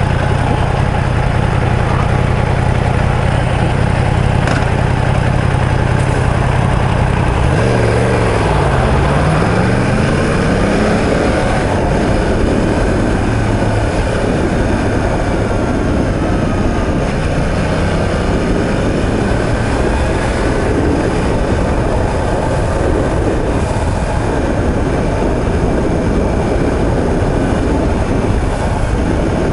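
Yamaha YZF-R1M's crossplane inline-four idling steadily at first, then pulling away about eight seconds in with its pitch dipping and climbing, and running at road speed under wind rush for the rest.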